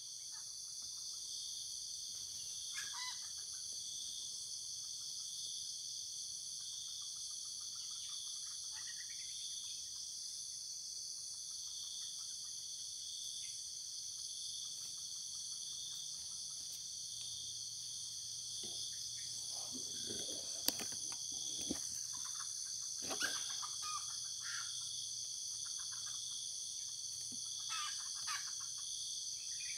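Steady, high-pitched chorus of insects, crickets or cicadas, in tropical undergrowth, with short bird calls breaking in now and then and a couple of sharp clicks past the middle.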